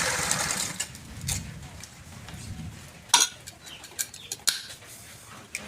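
Noise of a running woodworking machine dying away in the first second, then a few scattered, sharp clinks and knocks of hard objects being handled, the loudest about three seconds in.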